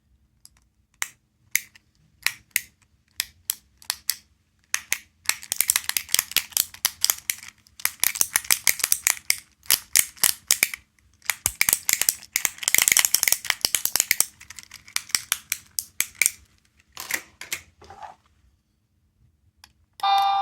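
Small plastic capsule toy clicking and rattling: single sharp clicks at first, then several runs of fast rattling clicks lasting a few seconds each, then more single clicks.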